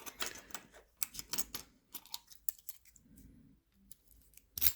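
Small metal clicks and scrapes of a lock and its key being handled, the key worked in the lock, with one sharper click just before the end.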